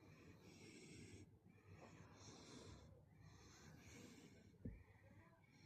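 Siberian husky snoring in its sleep: faint, breathy, hissing snores about once a second, with one soft thump about three-quarters of the way through.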